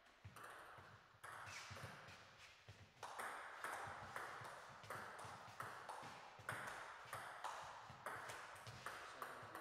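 Table tennis rally: the ball clicking off the bats and the table about one to two times a second, each hit ringing briefly in the hall.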